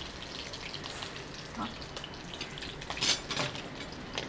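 Hot oil sizzling and crackling as a tempering of mustard seeds, dried red chillies, curry leaves and asafoetida fries in a pan, with a louder flurry of crackles about three seconds in.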